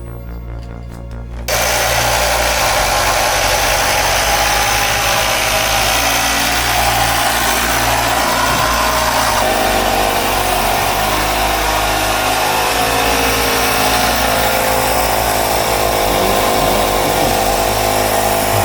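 Air compressor starting about a second and a half in and running steadily with a loud hiss, inflating a Onewheel XR tire to a high pressure to seat its bead.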